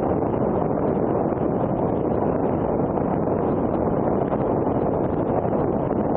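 Steady wind noise on the camera microphone of a BMW F800ST motorcycle cruising at about 94 km/h, an even rush with the bike's running noise beneath it.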